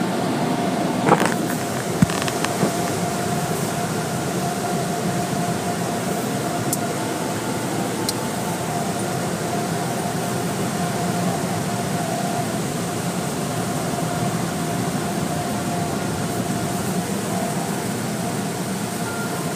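Automatic car wash machinery running, heard from inside a car: a steady rushing noise with a constant hum, and a couple of knocks about one and two seconds in.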